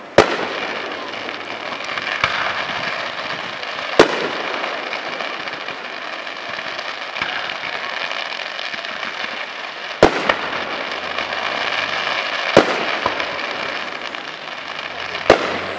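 Aerial fireworks shells bursting: about five sharp bangs a few seconds apart, with a steady hiss between them.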